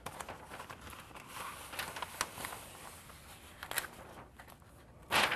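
Rustling and crackling of self-adhered flashing tape as its paper release liner is peeled off and gloved hands press the tape onto the jamb, with a few sharp crackles and a louder rustle near the end.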